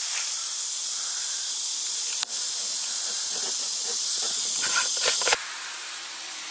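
A steady, high-pitched chorus of summer insects. A sharp click comes about two seconds in, and a few short handling sounds follow near five seconds, after which the chorus is a little quieter.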